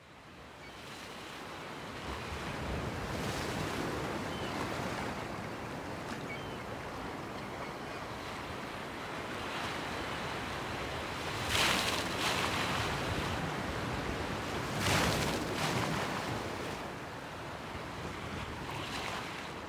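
A steady rushing noise, like surf or wind, fading in over the first two seconds and swelling several times, most strongly about 12 and 15 seconds in.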